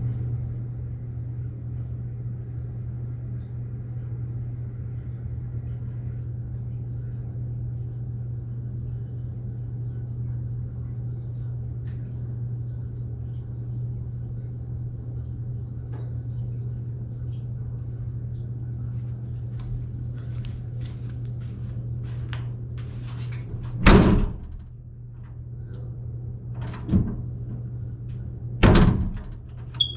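A steady low hum, then a door banging shut twice in the last several seconds, with a lighter knock between the two bangs and some small clicks before them.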